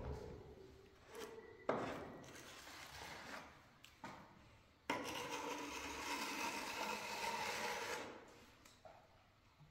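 A steel plastering trowel scraping and smoothing plaster along a ceiling cornice: a few short scrapes, then a longer, louder scraping stroke about five seconds in that lasts some three seconds.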